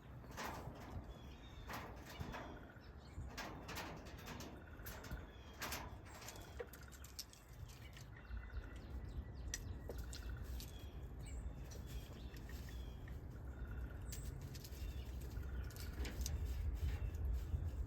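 Birds chirping with short repeated calls, over many scattered sharp clicks and a steady low rumble that grows louder near the end.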